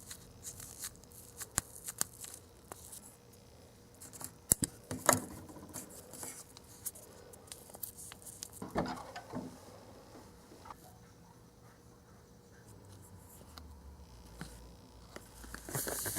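Small clicks, taps and rustles of toy kitchen pieces and candy-kit parts being handled at close range, with a louder rustling scrape about nine seconds in and a short hiss near the end.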